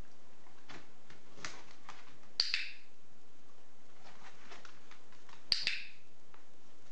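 A dog-training clicker clicked twice, about three seconds apart, each click a quick double snap. Faint light taps sound in between.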